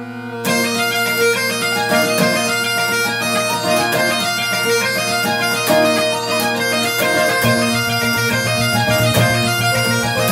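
Great Highland bagpipe: the drones sound steadily, and about half a second in the chanter starts a fast tune full of quick grace-note ornaments. A deeper low part joins under it about seven and a half seconds in.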